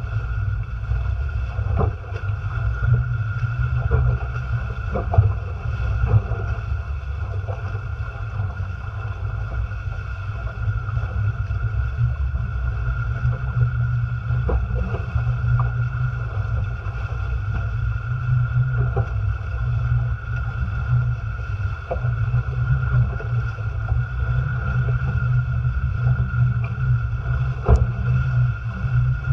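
Haines Hunter Tramp folding trimaran sailing fast through open-ocean chop: water rushing and spraying along the hulls with frequent short slaps, over a heavy low rumble of wind buffeting the microphone. A steady thin high whine sits underneath.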